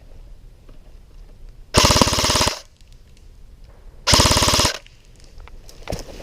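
Airsoft electric rifle firing two short full-auto bursts: a rapid, even rattle of about three-quarters of a second, a pause, then a second burst about half a second long, both loud and close.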